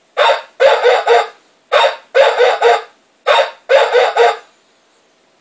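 Motion-activated toy Dalmatian playing a recorded dog bark through its small speaker, set off by a hand waved past its motion detector. Three rounds of a single bark followed by a quick run of three barks. The barks have no deep low end, and they stop about four and a half seconds in.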